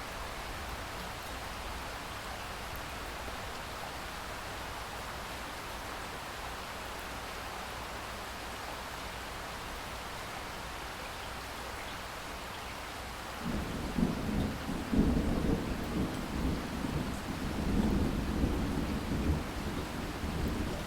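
Steady rain falling as an even hiss; about two-thirds of the way in a long roll of thunder begins, a deep rumble that swells and fades in waves over the rain.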